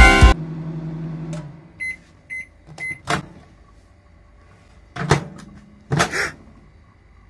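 A band track with drums and guitar cuts off just after the start. Then a microwave oven gives three short electronic beeps about two seconds in, followed by a sharp click and two louder clunks of its door around five and six seconds.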